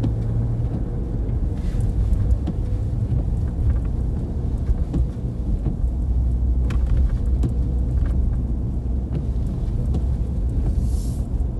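Car driving on a snowy road, heard from inside the cabin: a steady low rumble of engine and tyres, with a few faint knocks.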